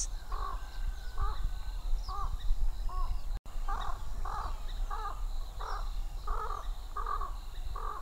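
A bird giving a long series of short, harsh calls, one every half second to a second.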